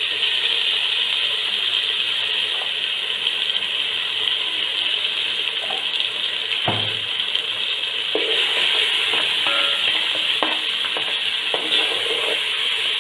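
Sliced onions and whole spices frying in hot oil in a rice-cooker pot, a steady sizzle. In the second half a few light knocks and scrapes of a spoon or spatula against the pot as the ginger garlic paste is stirred in.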